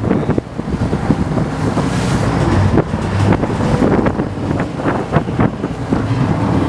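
Strong wind buffeting the microphone on a moving sportfishing boat, over the boat's engine rumble and the rush of waves along the hull.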